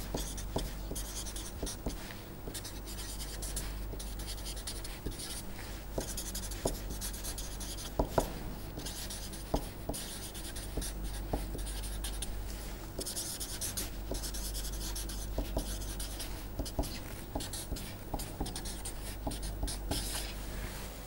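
Felt-tip marker writing on paper: a run of scratchy strokes with small ticks as the tip touches down and lifts, over a steady low hum.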